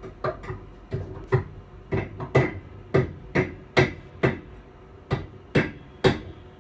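Repeated sharp knocks on the carriage's running gear during a gauge-change wheel set swap, about fifteen strikes roughly two a second with a short ring after each.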